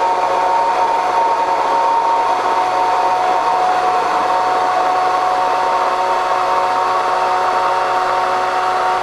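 Handheld immersion blender running steadily in a glass jar of apple vinaigrette, a constant motor whir with a few steady tones, while oil is drizzled in to emulsify the dressing.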